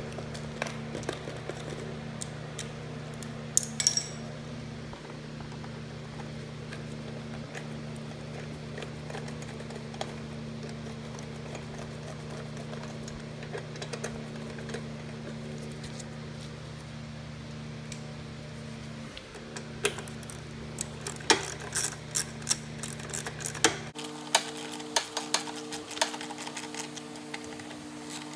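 Small clicks and metallic taps of parts being handled as the plastic air filter housing is fitted back onto a Honda GCV160 mower engine and its nuts are done up, growing busy in the last several seconds. A steady low background hum runs under it and shifts in pitch about two-thirds of the way through.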